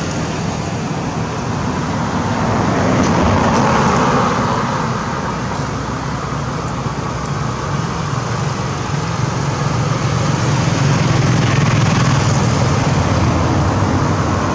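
Steady road traffic noise, a continuous rushing hiss that swells as vehicles pass, about two to four seconds in and again near the end.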